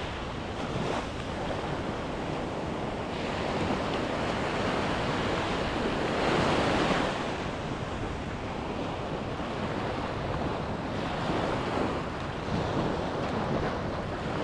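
Small surf breaking and washing up a sandy beach, the rush swelling and ebbing every few seconds, with wind buffeting the microphone.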